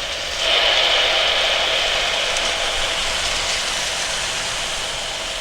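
Jet engine noise from a departing Airbus A320-214 with CFM56 engines: a steady hiss that jumps up about half a second in, then slowly fades.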